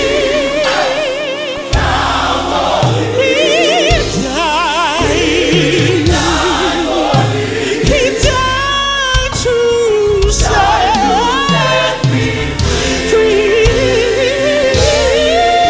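Gospel choir singing long, held notes with heavy vibrato and sliding runs, over live band accompaniment.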